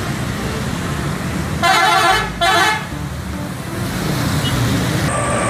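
Bus horn giving two short pitched blasts just under a second apart, over steady road traffic noise. A steady high tone starts near the end.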